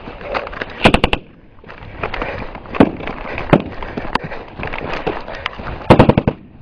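Small-arms gunfire: a quick burst of shots about a second in, a few single shots spaced over the next few seconds, and another burst near the end.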